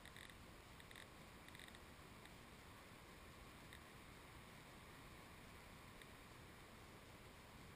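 Near silence: a faint steady hiss, with a few faint short high-pitched blips in the first four seconds.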